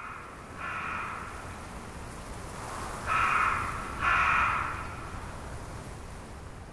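A crow cawing in pairs, two caws about every three seconds, over a steady background hiss.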